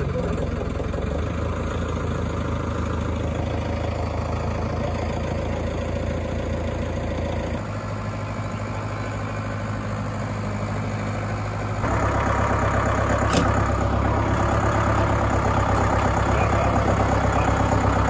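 Farm tractor engine running steadily, a low continuous drone, louder and fuller from about twelve seconds in.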